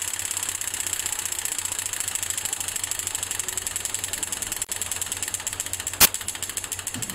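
A steady, fast, even mechanical clatter over a low hum, with one sharp click about six seconds in.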